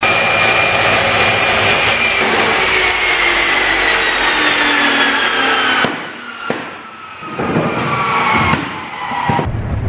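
Chop saw cutting blue plastic pipe: a loud motor whine that slowly falls in pitch as it cuts. The cutting noise breaks off about six seconds in and comes back briefly before tailing off near the end.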